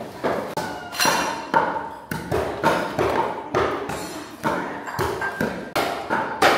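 Kitchen work: a steady run of knocks, about two or three a second, each with a slight ringing ping.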